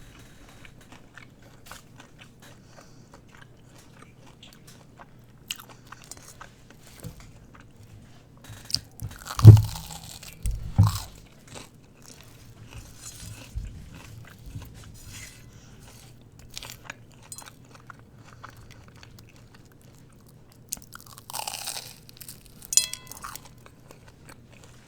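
Close-miked eating: chewing and crunching of food with frequent small wet mouth clicks. Two louder low thumps come about nine and a half and eleven seconds in, and a brief rustling scrape comes near the end.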